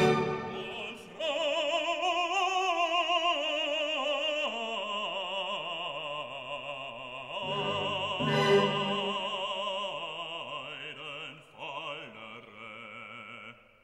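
Background music: operatic singing with a wide vibrato, moving through several held notes, fading to a brief near-silent pause at the very end.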